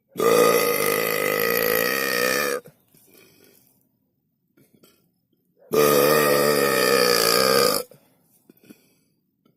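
A person burping twice, each burp long and drawn out at about two seconds; the second comes about five and a half seconds in.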